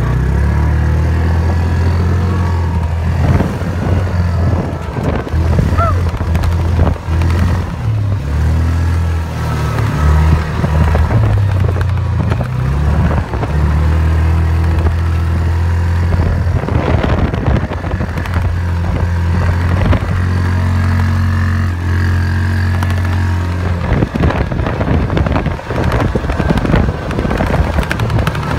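Side-by-side utility vehicle's engine running steadily as it drives over a rough grassy field, with scattered knocks and rattles from the bumps.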